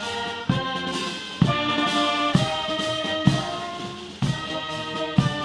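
Military brass band playing honours music for the arriving President, with a bass drum beat about once a second.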